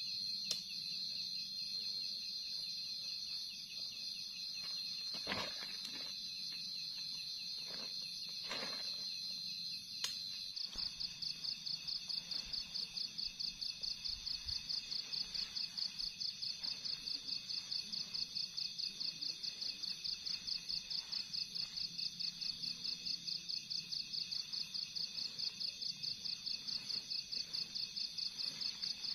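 Night insects: a steady high-pitched trill, which changes abruptly about ten seconds in to a high chirping pulsing about three times a second. A couple of brief rustles come in the first half.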